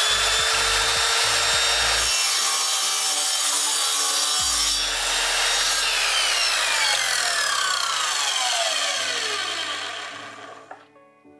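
Parkside PKS 1500 A2 miter saw's electric motor running at full speed with a high whine while its blade cuts wood. About six seconds in, the motor is switched off and the blade spins down with a falling whine that fades out near the end.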